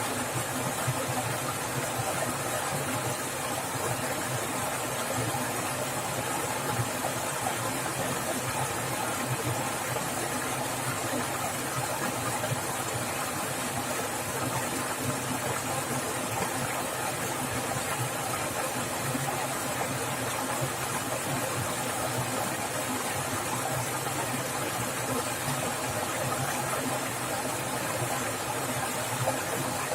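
Swift-flowing water splashing and rushing steadily, an even, unbroken wash of noise.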